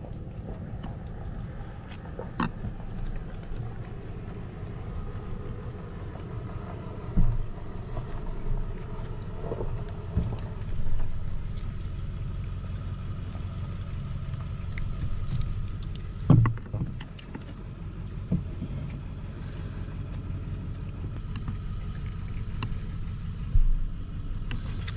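A steady low rumble, as of wind buffeting the microphone outdoors. A handful of sharp knocks and taps come from eating at a wooden picnic table, the clearest a little after seven seconds, at about sixteen seconds and near the end.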